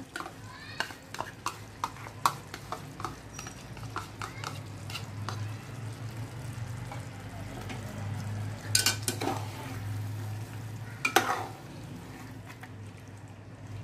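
Steel spoon scraping ground onion-coconut masala out of a bowl into an aluminium pot and stirring it through the chicken: many small clicks and scrapes, with two louder clanks of spoon on pot in the second half, over a low steady hum.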